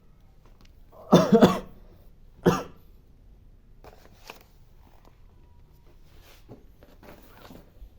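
A man coughing: a quick run of three coughs about a second in, then a single cough a second later. Faint small clicks and knocks follow.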